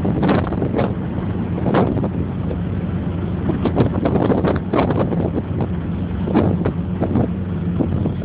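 Car engine running steadily while driving, heard from inside the cabin, with many irregular sharp knocks and thumps through it.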